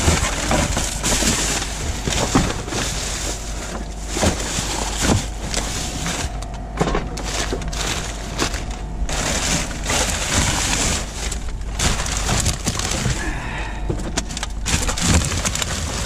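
Household rubbish being rummaged through by gloved hands in a wheelie bin: plastic bags and wrappers crackle and rustle constantly, with frequent short knocks as bottles, cans and other containers are shifted.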